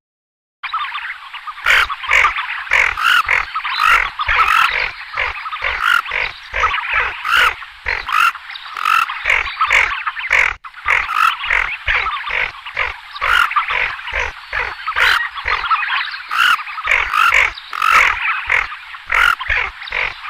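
Tufted ducks giving a dense chorus of rasping, growling calls, with sharp clicks two or three times a second.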